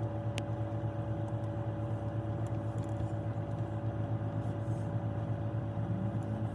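Car engine idling steadily: an even low hum with a faint steady tone above it.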